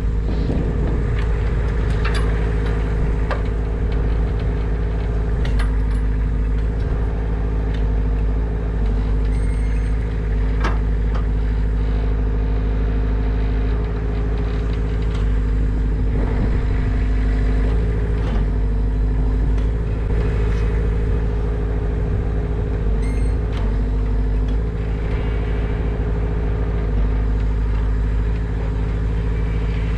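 A large engine running steadily at constant speed, a low even rumble, with scattered light clicks and knocks over it.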